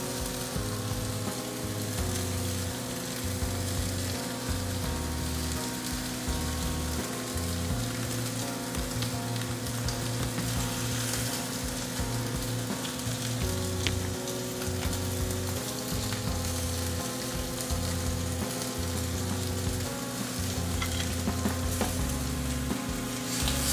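Ribeye steak sizzling steadily as it sears in a hot cast-iron grill pan.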